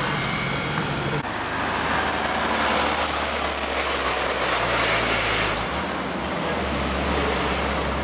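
Road traffic: a coach, cars and a pickup driving past with engines running and tyre noise, and a steady high-pitched whine from about two seconds in.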